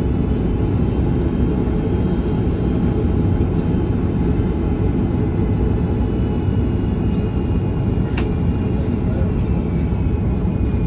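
Cabin noise of an Airbus A330-300 on final approach: a steady rumble of airflow and its Pratt & Whitney PW4170 engines, with a faint high whine that slowly shifts in pitch. A single short click about eight seconds in.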